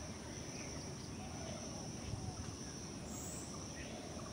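Faint ambient background: a steady high-pitched insect trill, like crickets, over a low hiss, with a few faint distant calls.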